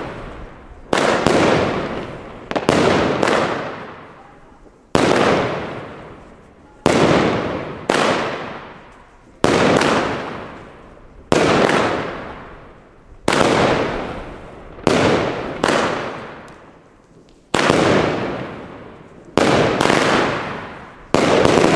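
A 25-shot, 25 mm calibre Blackboxx 'Feuer & Eis' firework battery firing its shots one after another, about sixteen sharp bangs roughly one every one to two seconds, sometimes two close together. Each bang dies away over a second or so.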